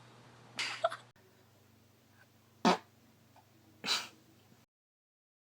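A few short farts, each a brief burst, the loudest a sharp one about two and a half seconds in.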